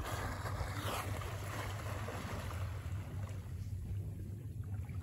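A dolphin surfacing beside the boat: a sudden puff of breath and rush of water that fades over about a second. A steady low rumble from the boat underway runs beneath it.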